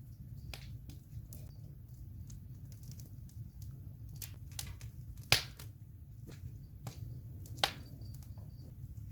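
Wood campfire burning with a low steady rumble of flames and scattered crackles and pops, two sharp loud pops about five and seven and a half seconds in.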